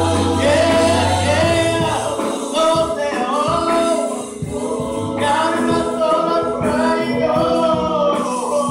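Gospel singers singing together into microphones over sustained keyboard chords, the voices sliding between notes.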